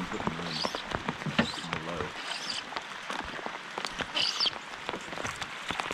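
Steady rain falling on the river, with many sharp drop ticks close by, and a few short bits of voice in the first two seconds.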